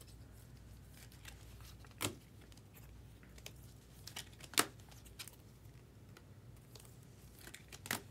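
Faint handling noise of trading cards and pack wrappers: three soft clicks, about two seconds in, halfway through and near the end, with light rustling between.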